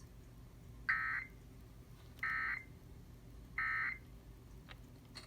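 Three short bursts of Emergency Alert System SAME data tones, the End of Message code, each a fast two-tone digital warble under half a second long, about a second apart, closing an EAS test. A faint low hum runs underneath, with a couple of faint clicks near the end.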